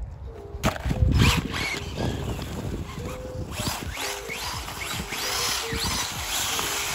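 Laegendary Sonic brushless RC truck's electric motor whining up and down in pitch as the throttle is worked, its tyres churning through slushy snow. A few loud knocks come about a second in.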